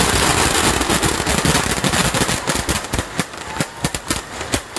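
Fireworks shells bursting overhead in a rapid barrage: a dense run of booms at first, then many fast, sharp crackling pops that thin out toward the end.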